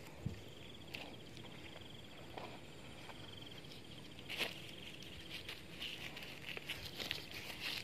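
An insect trilling in a high, fast-pulsed buzz for about three seconds, among scattered light taps and rustles that grow busier in the second half.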